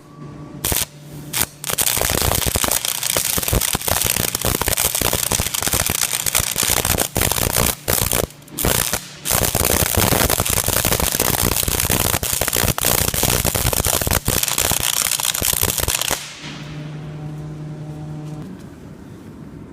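Stick (arc) welder set to about 120 amps, the arc striking with a couple of short crackles and then burning steadily with a loud continuous crackle while a bead is run, breaking off briefly a few times before stopping. Afterwards a low steady hum.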